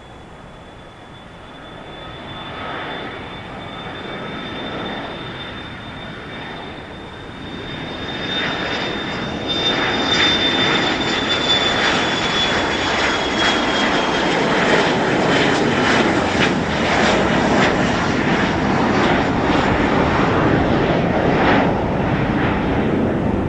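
Embraer Praetor 500 business jet's twin Honeywell HTF7500E turbofans at takeoff thrust: a high whine over a broad roar that grows louder over the first ten seconds and then holds. The whine drops slightly in pitch about halfway through.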